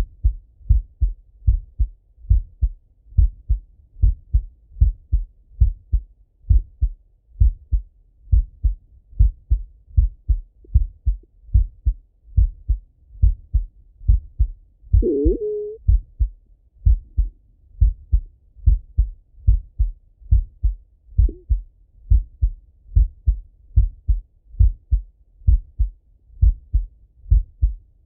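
A man's heartbeat heard through a Littmann stethoscope: a regular run of low, dull thumps in close lub-dub pairs. About halfway through, a short higher squeak bends up and down for about a second over the beats.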